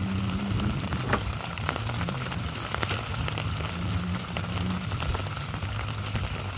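Drizzle pattering on the sea and the boat: a steady hiss of falling drops broken by many small ticks, over a low steady hum.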